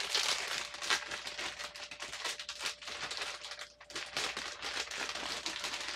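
Packaging of a small wooden model kit being handled: quick, irregular crinkling and rustling with small crackles, easing off briefly about two-thirds of the way through.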